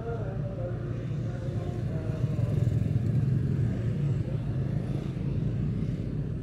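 A motorcycle being ridden at a steady pace: its engine and a dense low rumble run throughout, mixed with the sound of other motorbikes in street traffic.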